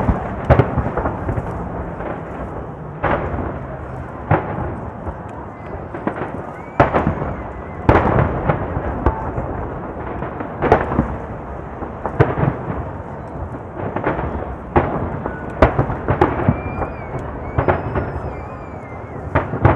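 Aerial firework shells bursting in a dense barrage: sharp booms every second or two at uneven spacing, over a continuous crackle and rumble from overlapping bursts.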